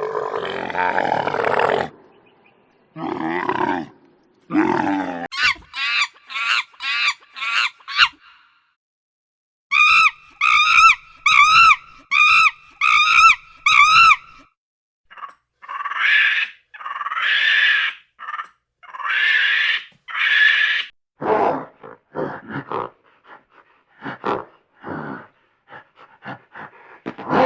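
A series of different animal calls played one after another with short breaks between them: a harsh call, a run of quick chirps, a regular string of wavering calls about twice a second, some longer calls, then rapid short clicking calls.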